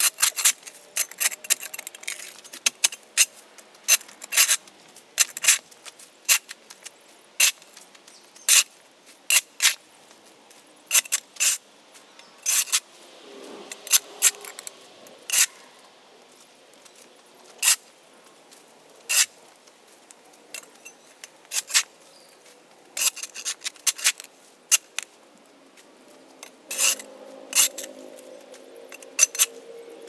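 Shovel blade scraping across a concrete slab, prying up packed dirt and grass. There are many short, sharp scrapes, about one or two a second in an uneven rhythm, with a softer stretch about halfway through.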